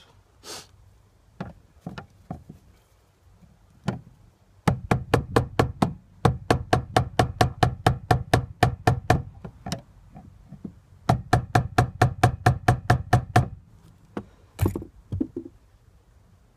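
Hand ratchet wrench clicking in quick, even runs as it is worked, two runs of about seven clicks a second, with a few separate knocks of metal tools around them.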